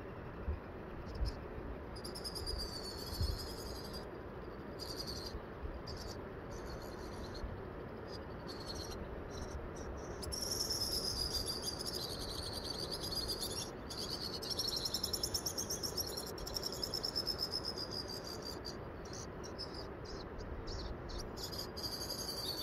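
Insects trilling in high-pitched, rapidly pulsing bursts that come and go, fullest in the middle of the stretch, over a steady outdoor rush. A few soft thumps sound in the first few seconds.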